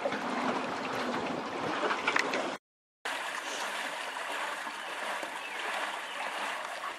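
Lake water sloshing and lapping against a pontoon paddle boat, with a few short sharp splashes about two seconds in. After a brief cut-out, a softer steady wash of water.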